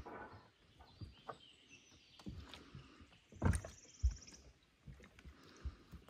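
Footsteps of a person walking on a country path: irregular knocks and scuffs, two louder steps about three and a half and four seconds in. A bird trills briefly at the same time.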